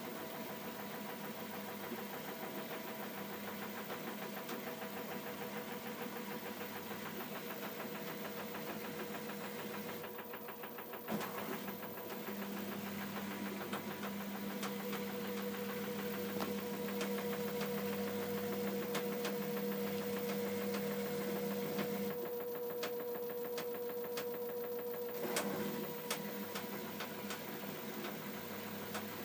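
LG F12A8CDP direct-drive washer-dryer running with a steady hum and motor whine tones that come and go. Scattered knocks are heard, typical of the machine's vibration, in which the bottom panel knocks.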